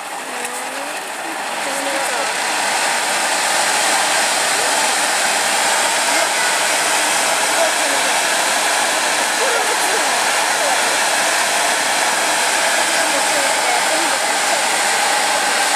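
Japanese tube firework (tezutsu hanabi) spewing a tall fountain of sparks with a steady rushing hiss, which grows louder over the first two seconds and then holds.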